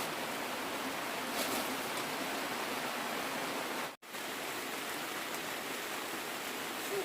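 Steady hiss of heavy rain falling. It cuts out for an instant about four seconds in.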